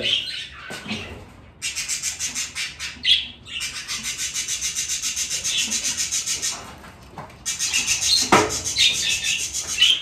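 Budgerigars chirping in their cages, with long stretches of fast, evenly repeated high chirps. A single knock about eight seconds in comes from a wooden nest box being handled.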